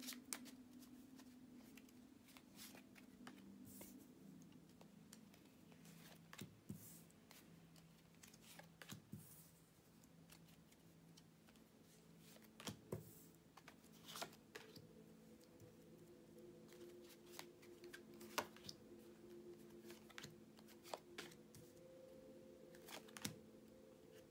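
Tarot cards being shuffled and handled: faint, irregular rustles and soft clicks of cards, over a quiet low hum.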